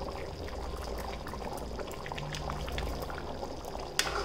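Thick curry gravy bubbling at a boil in a metal pan, with many small pops from bursting bubbles. A single sharp click near the end.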